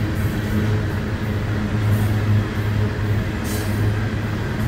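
Coal train hopper cars rolling past, a steady rumble of steel wheels on rail, with a short high-pitched hiss about three and a half seconds in.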